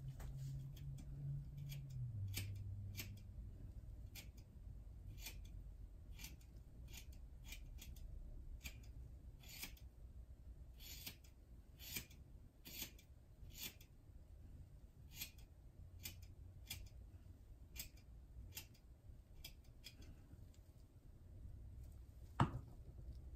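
Dull household scissors snipping through thick long hair: a string of crisp snips, about one or two a second, with one louder click near the end.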